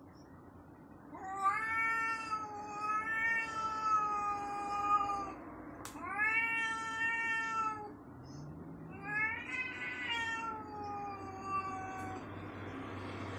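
Domestic cat yowling: three long, drawn-out caterwauls of two to four seconds each, the last sliding down in pitch. It is the hostile yowl a cat uses to threaten and warn off another cat.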